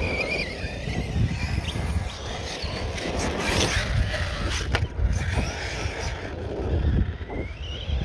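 RC car's brushless Surpass Hobby motor whining as the car drives and accelerates, its pitch rising near the end, over heavy wind buffeting on the microphone. A few sharp knocks a little past halfway.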